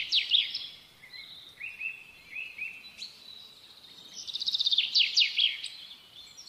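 Birdsong: bursts of rapid high trills at the start and again about four seconds in, with softer chirps between.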